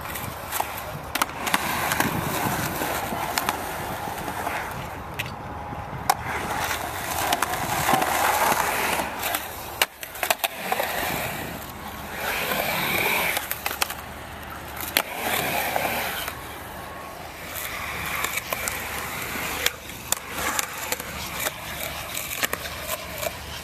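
Skateboard wheels rolling on concrete, with sharp clacks of the board hitting the ground now and then.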